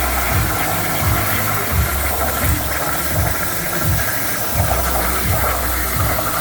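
CNC machine running: a steady hiss with a low, uneven throb repeating about every half second or so.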